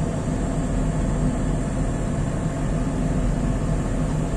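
Oxbo 2485 sweet corn harvester running steadily at working engine speed of about 2000 rpm, heard inside the cab as an even, unchanging machine noise.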